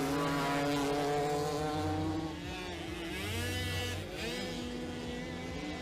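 Several small moped engines racing, overlapping as they go, their pitch dipping and then climbing again twice: once about two seconds in and once about four seconds in.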